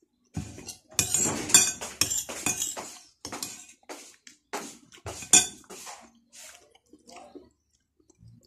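Metal cutlery clinking and scraping against a ceramic bowl: a run of sharp clicks, busiest in the first half and thinning out toward the end.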